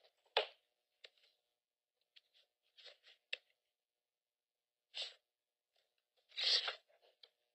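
Faint scattered rustles of papers being handled, with a sharp click about half a second in and a longer rustling burst near the end.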